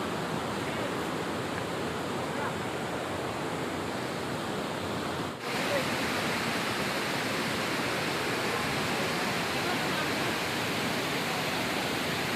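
Steady rushing of a waterfall, an even wash of water noise, with a brief dip about five seconds in, after which it sounds brighter.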